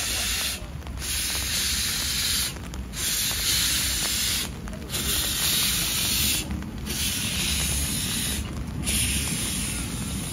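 Replica Adler steam locomotive hissing steam, the hiss dipping briefly about every two seconds over a low rumble.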